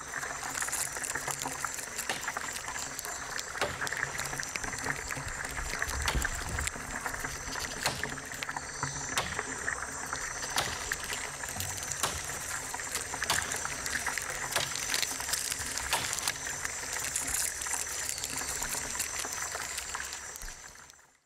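Playback of amplified close-miked ant recordings from rainforest leaf litter: a dense crackle of clicks and scratches over a hiss, with two steady high tones running through it. It fades out near the end.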